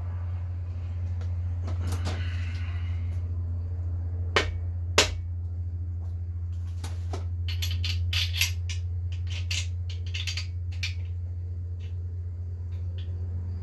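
Metal parts and hand tools clinking and knocking against each other while the main bearing cap bolts are set in, over a steady low hum. There are two sharp knocks about four and five seconds in, then a quick run of light metallic clicks.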